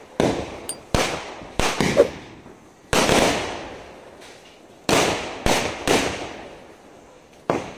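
Aerial fireworks bursting overhead, about nine sharp bangs at uneven intervals, each dying away in a long echo.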